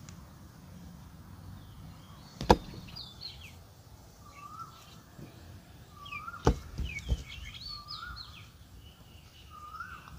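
Birds calling: a short whistled note that rises and falls, repeated about every second and a half, with higher quick chirps. Sharp knocks cut through, one loud one about two and a half seconds in and three close together about six and a half seconds in, as coconut-shell bowls are handled over a steel mixing bowl.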